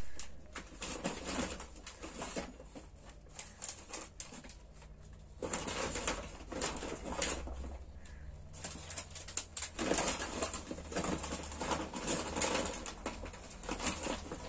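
Woven plastic shopping bag rustling and crinkling, with aluminium-foil food trays handled and packed into it, in irregular bursts over a low steady hum.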